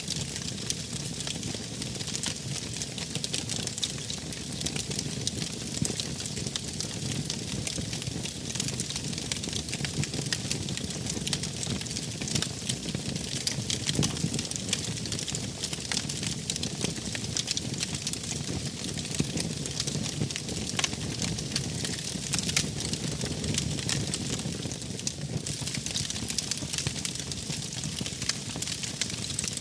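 Wood fire burning in a fireplace, crackling and popping continuously over a soft low rumble of flames.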